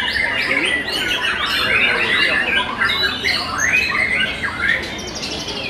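Young white-rumped shamas singing, several caged birds at once: a dense run of rapid, varied whistles, trills and harsh chattering notes overlapping without a break.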